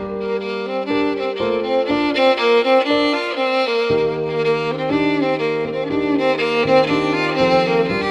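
Background music led by a violin, playing a moving melody over held lower string notes.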